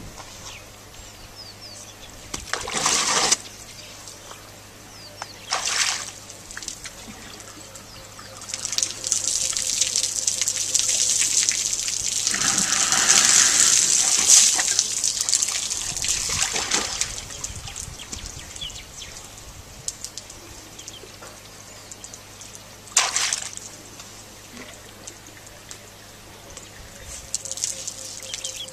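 Water running and splashing in several bursts. The longest lasts about seven seconds near the middle, and shorter ones come near the start and past the three-quarter mark.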